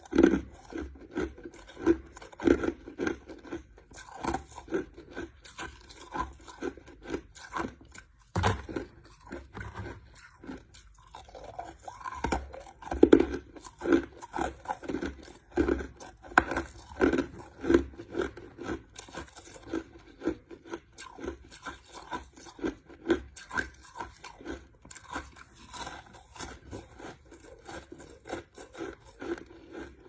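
Crushed ice being chewed: a continuous run of crunches, a few each second, with one sharper crack about eight seconds in.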